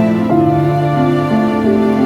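Background music: slow, gentle instrumental with sustained notes changing every half second or so.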